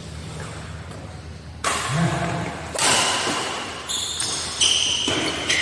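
Badminton play in an indoor hall: a series of sharp racket hits and thuds, and short high squeaks of shoes on the court floor, with some voices.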